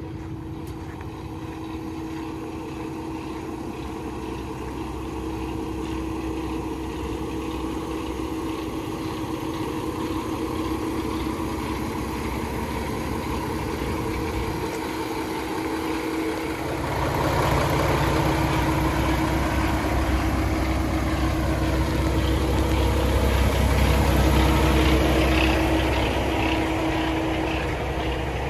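Diesel engine of a 2017 Peterbilt 567 tractor idling steadily, a constant low hum with a steady tone. It grows louder and fuller about two-thirds of the way through.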